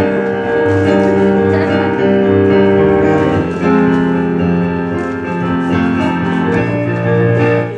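Piano playing held chords and a slow melody as live accompaniment.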